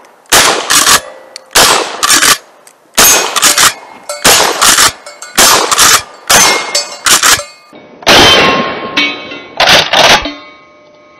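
Rapid fire from a Mossberg Maverick 88 pump-action 12-gauge loaded with mini shells: shot after shot about once a second, with the pump worked between shots and steel targets clanging and ringing. About eight seconds in, an exploding target goes off with a longer blast.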